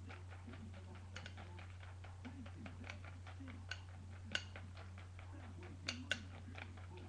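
Metal spoon clinking against a cereal bowl while eating, with a few sharper clinks in the middle and two close together near the end, among fainter light taps.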